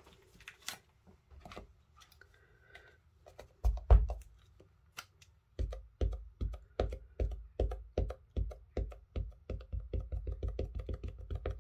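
An ink pad dabbed again and again onto a clear rubber-style stamp to ink it up: a run of short light taps, about three a second and quickening to about four a second near the end, after a single knock about four seconds in.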